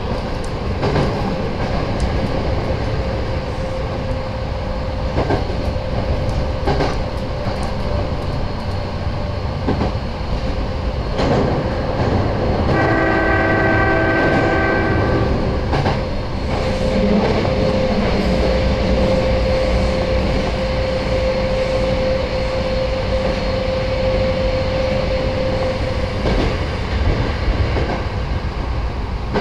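Nose Electric Railway 7200 series electric train running, a steady rumble with the clicks of wheels over rail joints. A horn sounds once, about two and a half seconds long, a little before halfway through, and a steady whine follows for several seconds.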